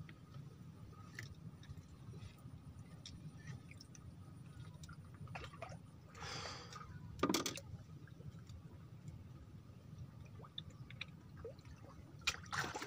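Small handling sounds from an angler working a fishing hook and line on a bamboo raft: scattered light clicks, a brief rustle about six seconds in and a sharper knock about a second later, over a low steady rumble.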